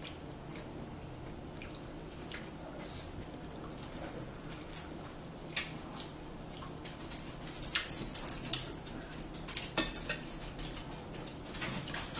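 Forks clicking and scraping on dinner plates, mixed with chewing and mouth sounds of people eating. The short clicks come scattered and grow thicker in the second half, over a low steady room hum.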